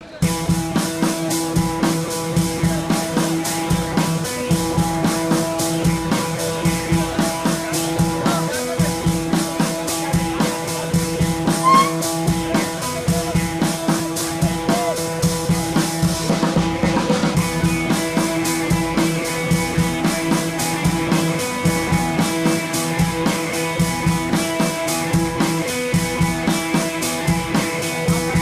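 Background music with a steady drum beat under held, sustained notes.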